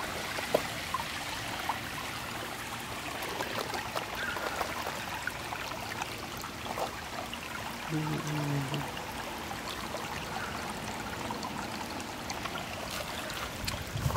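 Shallow creek water trickling and flowing steadily over rocks.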